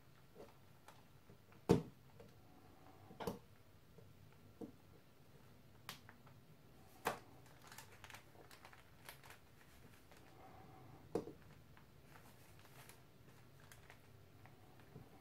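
Small metal parts of a watchmaker's lathe headstock clicking and tapping against each other as a split dust cover is worked onto the spindle. A few sharp clicks, the loudest about two, three, seven and eleven seconds in, with lighter ticks between.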